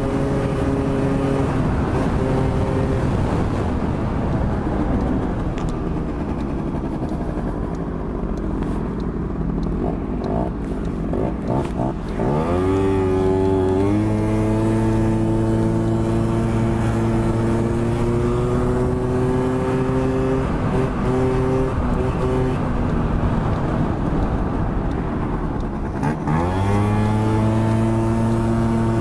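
Small 50cc motorbike engine running on the move, with wind noise. Its note drops and then climbs again twice, about halfway through and near the end, each time settling at a steady pitch as the bike picks up speed again.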